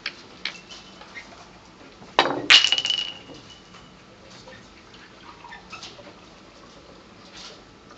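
Billiard balls clicking together during a shot: a few light clicks, then a quick clatter of hard clicks with a brief ringing about two seconds in.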